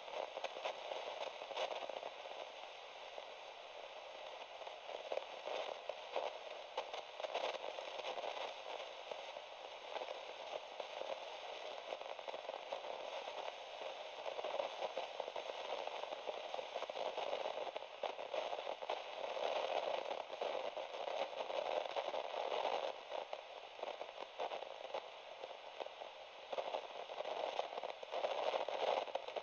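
Steady crackling static: an even hiss with faint irregular clicks, with no music or voice.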